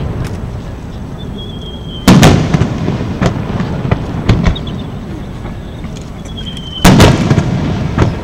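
Aerial fireworks shells: twice a short whistle sliding slightly down in pitch is cut off by a loud boom as the shell bursts, about two seconds in and again near seven seconds, with a few smaller cracks in between.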